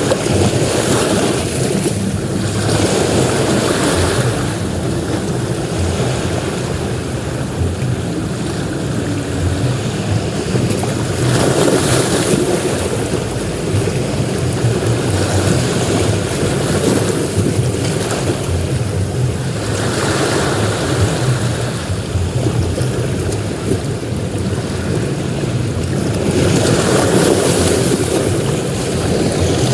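Ocean surf breaking on a beach: a continuous rushing wash that swells and fades every few seconds as waves come in.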